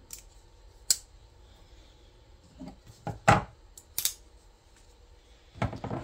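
Folding pocket knives being picked up from a wooden table and handled: a few separate sharp metallic clicks and knocks, the loudest just after three seconds in, with a small cluster near the end.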